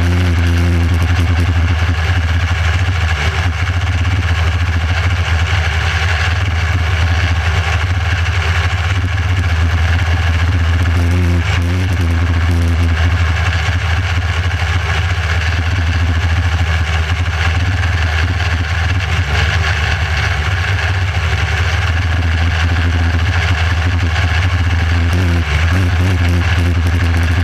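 Micro sprint car's motorcycle engine running hard and steady at racing speed, heard close up from on board the car.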